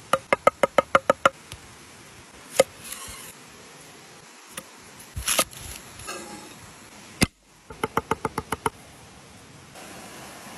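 Steel cleaver chopping herbs and garlic on a wooden cutting board. A quick run of about ten knocks comes at the start, a couple of single strikes follow in the middle, and another quick run of chops comes about eight seconds in. A stream's steady rush is heard near the end.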